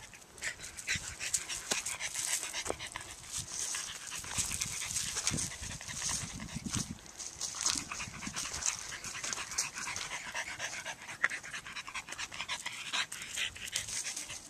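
French bulldog panting, a continuous run of quick, noisy breaths.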